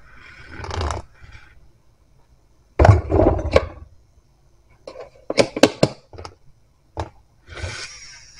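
Clinks, taps and knocks as a tall glass tumbler and its lid are handled on a countertop: a loud knock about three seconds in, a quick run of sharp clicks around five to six seconds, and a single click near seven seconds. A steady hiss starts near the end.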